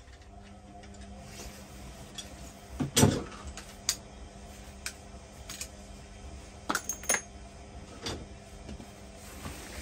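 Scattered metallic clinks and knocks of plumbing tools and pipe fittings being handled, the loudest a clatter about three seconds in, over a faint steady hum.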